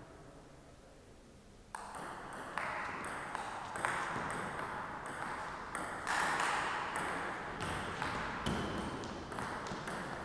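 Table tennis rally: the ball clicking sharply off the bats and the table about twice a second, starting a little under two seconds in.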